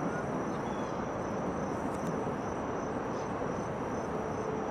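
Steady high-pitched insect chirring over a steady, broad rushing noise.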